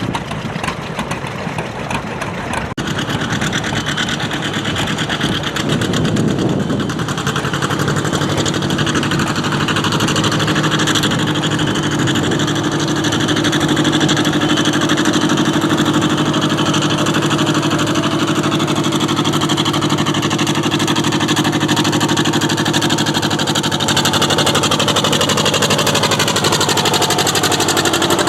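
Antique farm tractor engine revving up about five seconds in, then running at a steady pitch and growing louder, as during a tractor pull.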